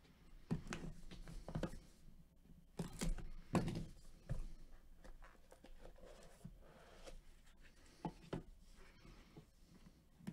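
A razor-blade box cutter slitting the seal of a cardboard trading-card box, then the box opened and handled: faint scrapes, rustles and light taps, loudest about three seconds in.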